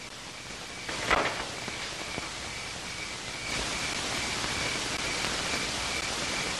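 Crickets chirping at a steady rate of about two chirps a second over steady hiss. A short scraping rasp sounds about a second in.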